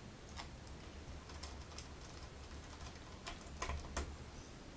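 Faint, irregular light clicks and taps of small screws and a screwdriver as a graphics card's cooler is screwed back onto its circuit board, the loudest few close together about three and a half to four seconds in, over a low rumble of handling.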